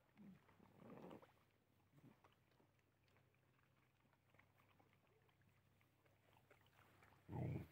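Dogs eating from a shared tub: faint chewing and mouthing sounds, then one brief, louder dog growl near the end.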